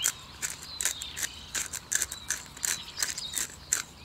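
Pepper mill grinding peppercorns: a steady run of short, sharp grinding clicks, about three a second.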